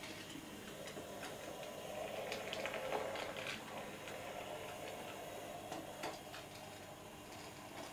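Hattons SE&CR P class OO gauge model locomotive running slowly along the track: a steady low whir from its small motor and gears, with scattered light clicks from the wheels on the rails.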